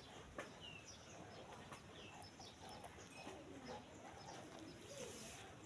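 Faint bird calls: short, high chirps that slide downward, repeating about every half second to second, with some lower wavering calls among them.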